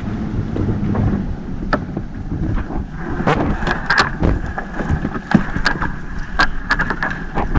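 Small fishing boat at sea: wind rumbling on the microphone over boat noise, broken by scattered sharp clicks and knocks. A thin steady whine comes in about halfway through.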